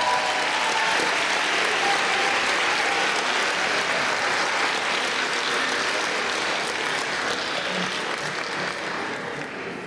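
Audience applauding; the group's last sung chord fades out in the first second, and the clapping dies down near the end.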